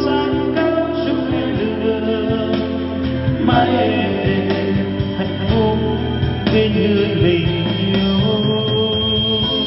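A song with singing played through an MBA SA-8705 trolley karaoke speaker, a wooden cabinet with a 15-inch woofer, mid driver and tweeter.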